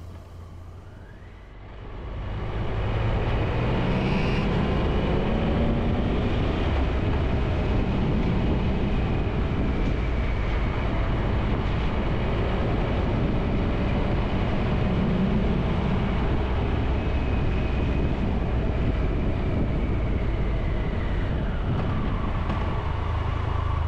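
Motorcycle riding along: the engine and road noise come up about two seconds in and hold steady. The engine note climbs and falls with the throttle, and eases off near the end as the bike slows.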